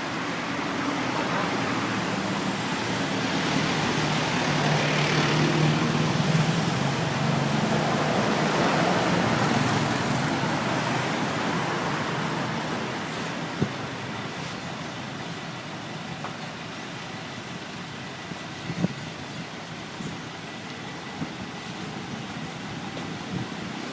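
Motor vehicle running with road traffic noise. The sound grows over the first ten seconds or so and then eases off, with a couple of light knocks in the second half.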